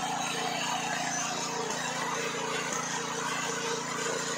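Small engine driving a water-well drilling rig, running steadily at an even speed.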